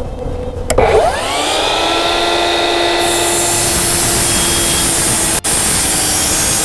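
DeWalt FlexVolt cordless miter saw starting about a second in, its motor spinning up to a steady whine, then cutting through a 4x4 wooden post to square its end.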